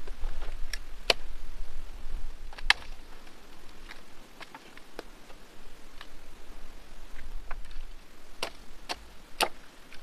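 Dry dead branches snapping and clacking against each other as they are broken and pulled from a brush pile: about ten sharp cracks at uneven intervals, several coming close together near the end.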